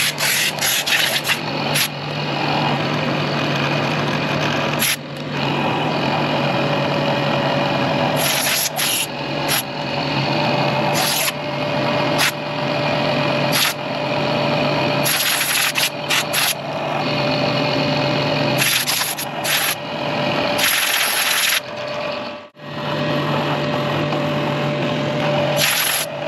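Milling machine running and cutting metal: a steady motor hum under a continuous rough rasping cutting noise, with short bright hissing surges every second or two.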